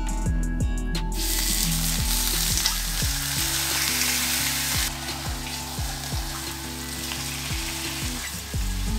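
Marinated beef slices sizzling in hot oil in a frying pan. The sizzle starts loudly about a second in as the meat goes in, eases a little about halfway, and goes on as the slices are turned with tongs. Background music with a steady beat plays underneath.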